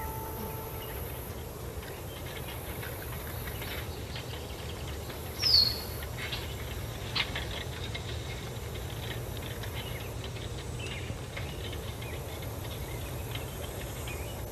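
Quiet outdoor ambience: a low steady rumble with scattered faint ticks. About five and a half seconds in comes a single short falling bird chirp, the loudest sound, and a sharp click follows a moment later.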